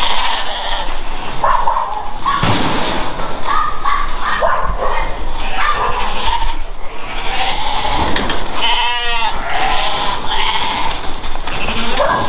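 Blackface sheep and lambs bleating, many calls overlapping, with one long wavering bleat about nine seconds in.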